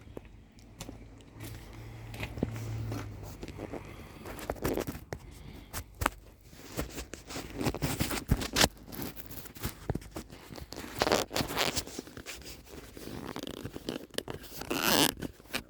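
Scrap being handled and sorted by hand: irregular knocks, clicks and scraping, with louder bursts of scraping and rustling about two-thirds of the way in and near the end.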